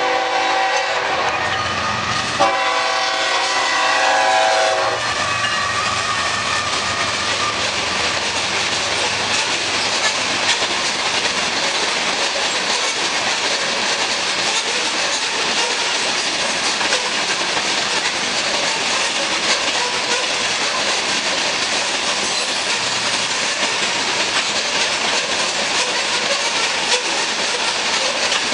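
A GE ES44C4 diesel locomotive's horn blows two long blasts, the second ending about five seconds in, as the locomotives pass. After that the loaded sand covered hopper cars roll steadily past with a continuous rumble and clickety-clack of wheels over rail joints.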